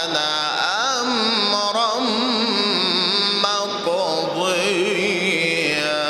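A male Quran reciter chanting in the melodic mujawwad style, drawing out a long melismatic phrase whose pitch bends, glides and trembles in ornaments. There is a short break a little past halfway before the next sung phrase.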